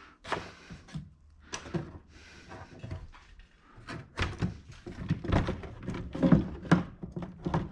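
Knocks and clatter of a plastic network junction box being handled and pried open by hand, scattered at first and quicker and louder from about halfway through.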